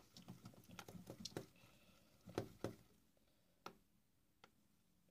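Faint scattered clicks and soft sticky taps from handling freshly made slime. They thin out after about three seconds, with two sharper clicks near the end.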